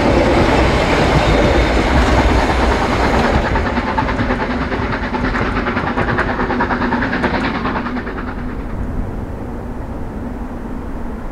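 Harzquerbahn metre-gauge train running past on the line, its wheels clattering over the rail joints, the sound fading steadily as it moves away.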